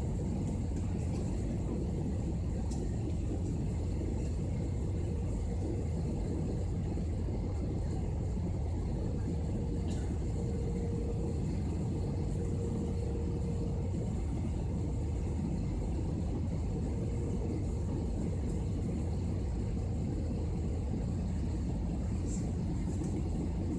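Steady rumble of jet engines and rushing air inside an airliner cabin, descending on approach to landing.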